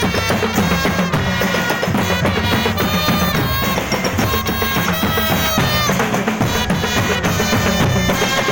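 Marching drum band playing: a steady beat of bass and snare drums under a melody of held notes that step from one pitch to the next.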